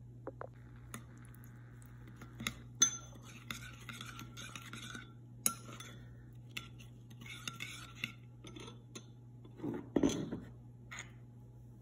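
Metal spoon stirring a lemon, garlic and oil marinade in a ceramic bowl: wet scraping strokes with sharp clinks of the spoon against the bowl. A louder knock comes about ten seconds in, over a steady low hum.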